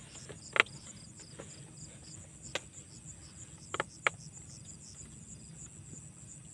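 Crickets chirping in a fast, even rhythm, with a few sharp clicks and knocks, the loudest about half a second in.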